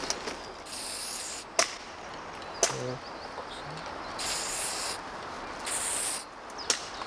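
Aerosol spray-paint can hissing in three short bursts as paint is sprayed onto a tree trunk, with a few sharp clicks in between.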